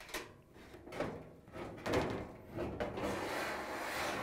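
GE dryer drum being lifted and guided out of the cabinet, its metal rim scraping and rubbing against the cabinet: a few short scrapes, then a longer continuous scrape near the end.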